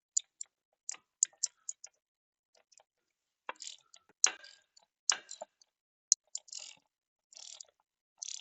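Metal hand tools and parts being handled: irregular sharp clicks and clinks, with short scrapes in the second half.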